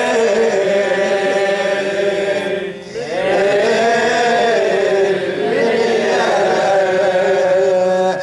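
Male reciter chanting an Arabic Shia lament (latmiya) into a microphone in long, wavering held notes, with a short break for breath about three seconds in.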